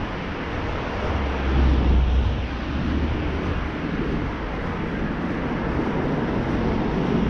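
Steady city-street traffic noise, with a low rumble swelling for a couple of seconds about a second in.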